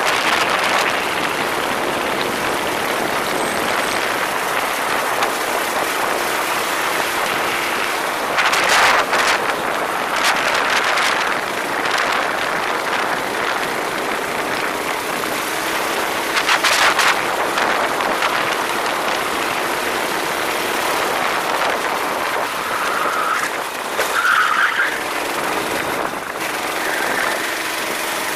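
Racing go-kart running at speed, with steady engine and wind noise. Louder rushes come about 9, 11 and 17 seconds in, and two short squeals near the end.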